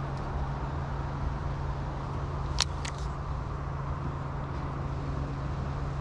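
Steady low outdoor rumble with a constant low hum, and one sharp click about two and a half seconds in.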